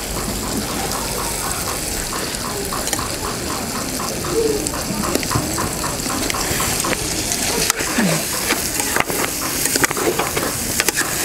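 Metal spoon stirring okra stew in an aluminium pot, scraping the pot in regular strokes for the first few seconds, then irregular knocks and scrapes, over the sizzle and bubble of the sauce cooking.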